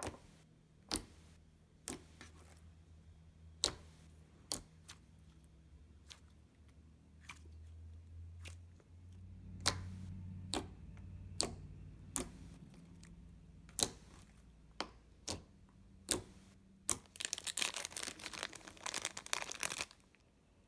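Hands squishing and stretching a fluffy clay-mixed slime, giving sharp clicks and pops about once a second, then a dense run of crackling pops for about three seconds near the end.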